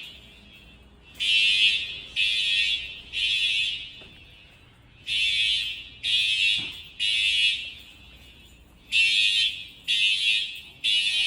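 Fire alarm horns sounding the temporal-three evacuation signal after a pull station has been pulled. Three blasts come about a second apart, then a pause, and the pattern repeats three times.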